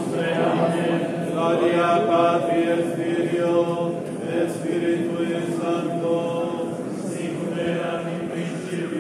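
Clergy chanting a liturgical prayer together in a stone church, on long held notes that step slowly from pitch to pitch.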